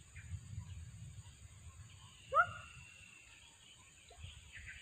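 A single short animal cry, a yelp that rises and falls in pitch, about halfway through, over a low rumble.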